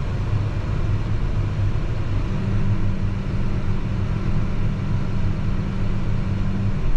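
Tractor engine running steadily. About two seconds in, a steady hum sets in alongside it and stops just before the end.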